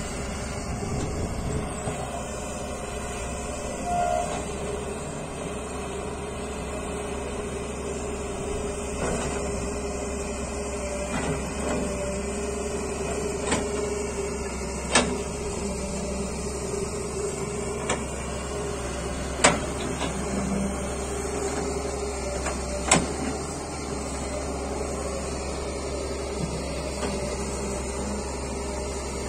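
Doosan Solar wheeled excavator running steadily, its engine and hydraulics working as it digs dry soil, with several sharp knocks as the bucket works the dirt.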